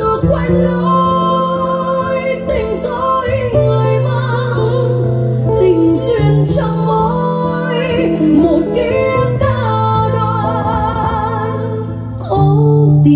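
A slow Vietnamese ballad playing, with sustained low accompaniment notes under a wavering melody line.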